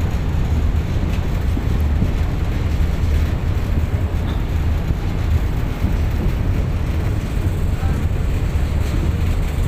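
Steady low rumble of a roll-on/roll-off ferry's engines running, even in level throughout.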